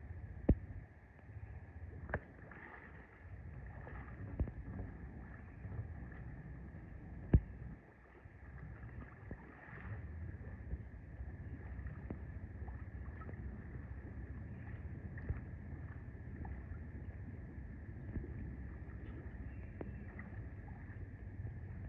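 An ATV pushing through chest-deep creek water, heard faintly: a low steady rumble with water churning around it. Two sharp knocks, about half a second in and about seven seconds in, are the loudest sounds.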